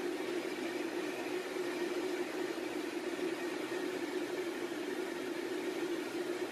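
Steady drone of aircraft engines and rushing air heard from inside an aircraft in flight, an even hum with hiss that doesn't change.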